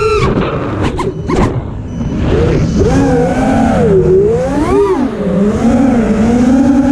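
FPV quadcopter's brushless motors whining. The pitch swoops up and down with the throttle and drops out briefly about a second in.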